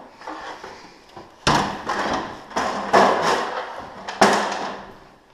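About five sharp knocks and clanks, each trailing off in a short clatter, starting about a second and a half in: hardware and tools being handled while adjusting a garage door opener's loose drive chain.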